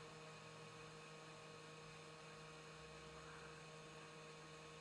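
Near silence with a faint, steady electrical hum of a few constant tones over a light hiss.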